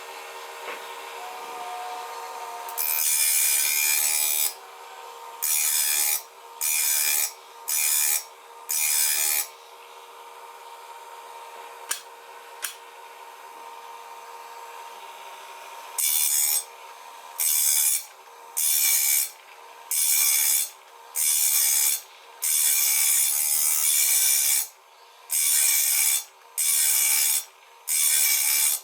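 Wipro PPM-03 saw-blade sharpening machine's motor running with a steady hum while its grinding wheel rasps against the teeth of a circular saw blade, one tooth after another in strokes of about a second. The grinding stops for several seconds in the middle, where two light clicks sound, then resumes.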